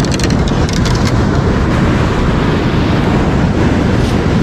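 Steady low rumble of wind buffeting the microphone, with surf breaking on the beach underneath.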